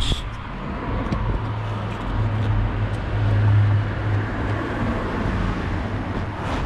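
Road traffic: a car's engine and tyre noise passing, a steady low rumble that swells to its loudest around the middle and then eases.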